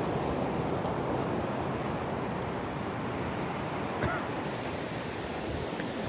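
Steady wash of Gulf of Mexico surf mixed with wind on the microphone.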